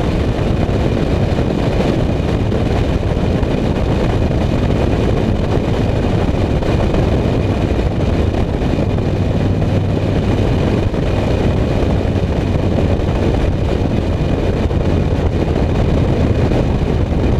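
BMW E39 M5 with its 4.9-litre V8 and a custom RP Motorsport exhaust, cruising steadily at road speed. The sound is a loud, even rush of wind on the microphone and tyre noise, with a low exhaust drone underneath that grows a little stronger midway.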